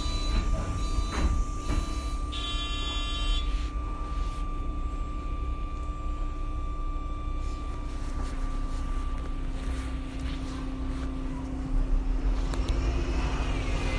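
MAN Lion's City Hybrid city bus running, a low rumble with a steady electric whine. About two and a half seconds in, an electronic buzzer tone sounds for about a second, and near the end a rising whine sets in as the drive speeds up.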